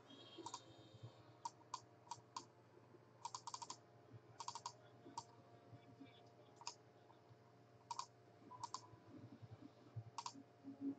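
Faint, irregular clicking of a computer keyboard and mouse: single clicks and short quick runs of keystrokes.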